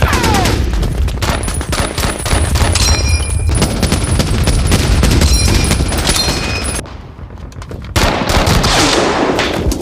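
Movie battle soundtrack of World War II small arms: dense, rapid, overlapping gunfire with machine-gun bursts for about seven seconds, which then breaks off suddenly. About a second later comes another loud, noisy burst that lasts nearly two seconds.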